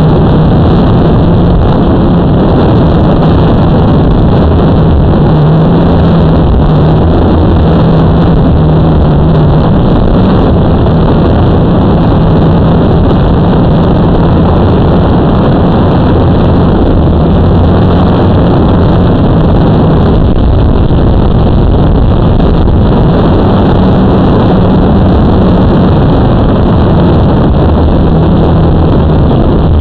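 Blade 350 QX quadcopter's brushless motors and propellers buzzing steadily in flight, heard very loud from the camera mounted on the drone, the pitch of the hum wavering a little as the motors adjust.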